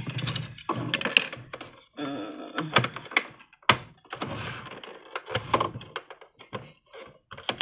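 Small plastic toy-kitchen cabinet doors and parts being tugged and handled: a run of sharp clicks, clacks and light knocks. The doors won't open because they are taped shut.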